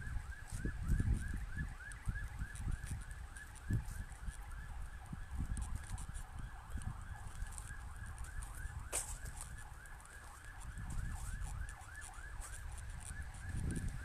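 A distant siren sounding in quick falling sweeps, about three a second, with low rumbling and a few thumps beneath.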